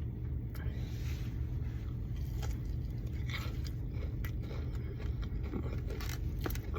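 Biting into and chewing a crispy fried chicken tender, with scattered short crunches and clicks and a scrape, over a steady low hum.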